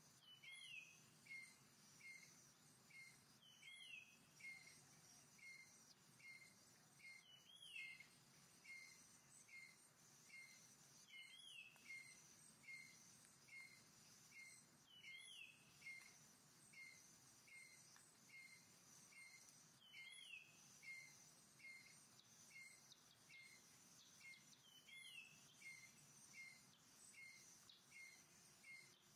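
Faint forest birdsong over a steady high insect drone. One bird repeats a short chirp about twice a second, and another gives a longer falling call every four seconds or so.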